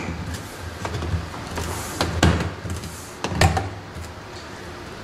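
Plastic LED cover panel being pressed and snapped into its slot along a bunker freezer's lid rail: a series of about five clicks and knocks, the loudest just after two seconds in and at about three and a half seconds, over a low steady hum.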